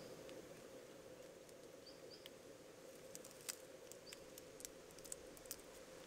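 Near silence: faint scattered ticks and crackles of dry leaf litter and twigs being disturbed, with a few faint short high chirps now and then.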